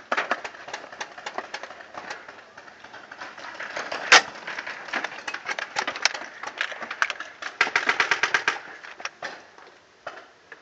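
Paintball markers firing in rapid strings of shots, with a fast run of about ten shots a second near the end and one louder crack about four seconds in.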